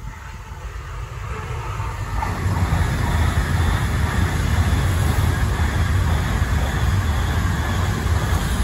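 N700S Shinkansen train passing without stopping on an elevated track. Its rush of wheel and air noise builds over the first two to three seconds, then holds loud and steady with a deep rumble.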